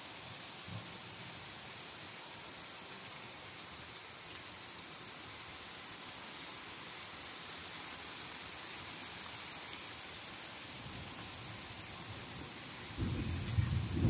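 Steady summer rain falling, an even hiss. Near the end a loud low rumble of thunder starts and keeps building.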